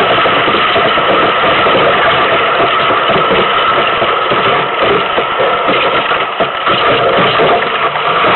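Loud, steady rushing wind noise on the microphone of a camera mounted on an ice boat, becoming uneven and gusty in the second half.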